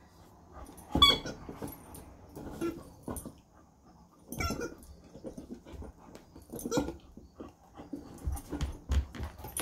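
A dog gnawing and mouthing a plastic 'babbler' toy ball that squeaks when bitten, with soft knocks and scuffs. Three short squeaky sounds come about a second, four and a half and seven seconds in.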